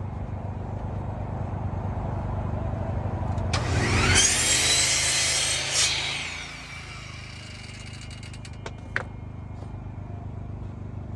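Power saw cutting plywood: the motor spins up with a rising whine, cuts for about two seconds, then winds down with a falling whine, followed by a sharp click. A steady low hum runs underneath throughout.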